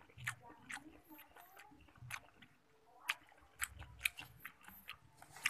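Close-up eating sounds: chewing with wet mouth clicks and smacks, plus the odd crinkle of a paper food wrapping as rice is scooped up by hand.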